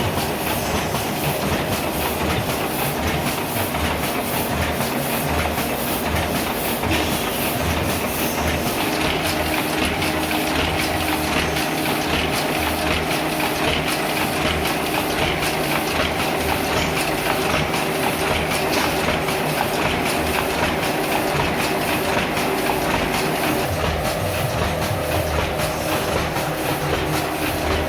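Heidelberg GTO single-colour offset printing press running, a steady rhythmic mechanical clatter repeating with each sheet cycle as it prints a separation.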